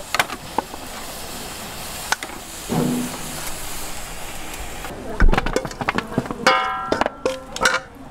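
Clatter of work at a food stall: scattered clicks and knocks over a steady hiss, a heavy thud about five seconds in, then a quicker run of knocks and clinks.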